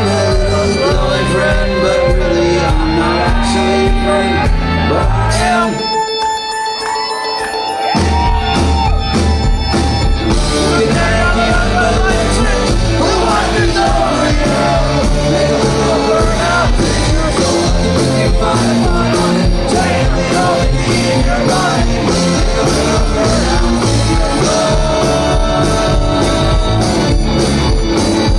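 Live rock band playing with keyboard, electric guitars, bass and drums. About six seconds in the bass and drums drop out for a couple of seconds, leaving only the higher parts, then the full band comes back in.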